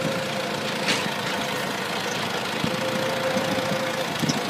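Forklift engine running while the forks lift a loaded pallet, with a steady whine at the start and again for about a second and a half in the second half.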